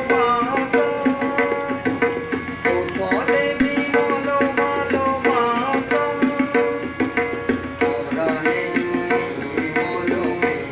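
Bengali Brotochari folk dance music: a hand drum keeps a steady, quick beat under a melody.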